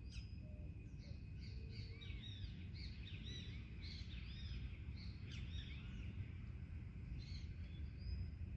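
Several birds chirping and singing in short, arching, overlapping notes, over a steady low rumble of background noise.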